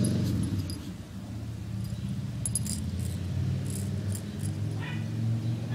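A dog's collar tags jingle in a few short bursts over a steady low hum, with a brief whine-like pitched sound near the end.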